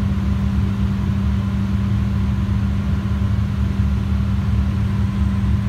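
A steady low mechanical hum with a constant droning tone and rumble underneath, unchanging throughout.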